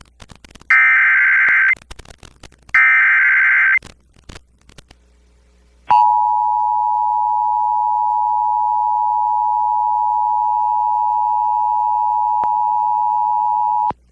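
Emergency Alert System activation on FM radio: two harsh digital screeching bursts, about a second each, end the three-burst SAME data header. After a short pause comes the two-tone EAS attention signal, a steady tone held for about eight seconds that cuts off abruptly. Together they announce a National Weather Service severe thunderstorm warning.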